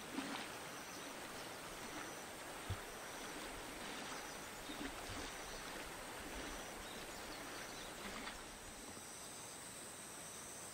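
Steady rush of a shallow river flowing over a gravel bed, with insects chirping in short, evenly spaced high pulses over a thin, steady high tone.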